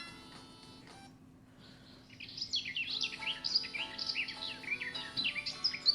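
Birds chirping and singing in quick, overlapping calls, starting about two seconds in, over soft, gentle music.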